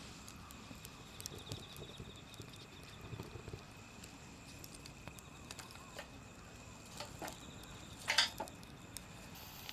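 Wood campfire crackling, with scattered sharp pops and a louder cluster of crackles about eight seconds in.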